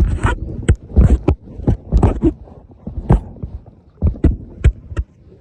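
Irregular thumps and rustling from a handheld microphone being jostled while someone walks: footsteps, about two to three knocks a second, some louder than others.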